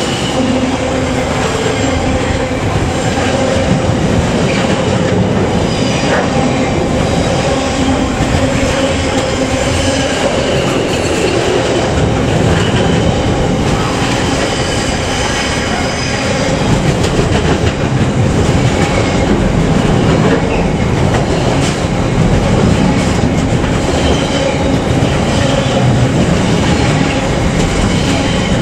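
Freight train rolling past, loud and continuous, its wagon wheels clattering over the rail joints.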